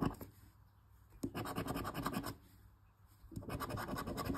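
Scratch-off lottery ticket being scratched: two bursts of quick, rasping scraping strokes, about a second each, with short pauses between them.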